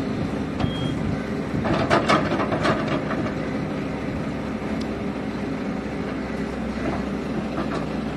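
Heavy diesel engines of the stuck bus and the Komatsu hydraulic excavator pulling it running steadily under load, with a cluster of sharp knocks about two seconds in.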